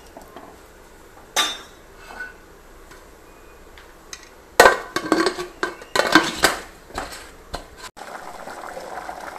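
Metal ladle stirring in an aluminium pressure-cooker pot, clinking and scraping against its sides in sharp strikes about a second and a half in and in a cluster between about four and a half and seven seconds. From about eight seconds the curry bubbles at a steady boil.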